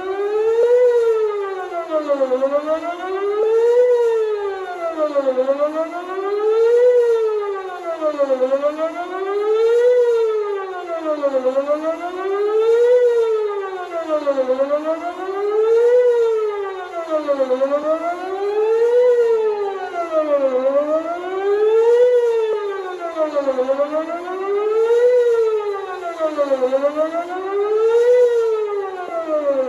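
Outdoor tornado warning siren sounding a wail during a siren test: a steady rising and falling tone, one rise-and-fall about every three seconds.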